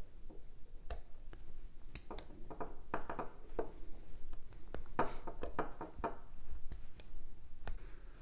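Small metal parts of a Craftsman 1/4-inch ratchet head clicking and scraping as the pawl and lever are worked into place by hand. Scattered sharp ticks, with clusters of short rasping scrapes about three seconds in and again around five to six seconds.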